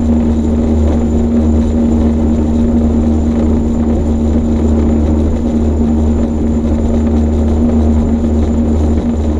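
Unlimited hydroplane's Lycoming T55 turbine engine running, heard from inside the enclosed cockpit: a loud, steady drone with one strong hum held throughout.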